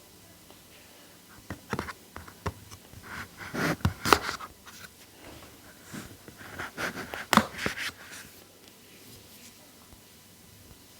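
Hands handling the tablet's cardboard box and packaging: scraping, rustling and sharp clicks in two bursts, the second a few seconds after the first, with quiet room tone between.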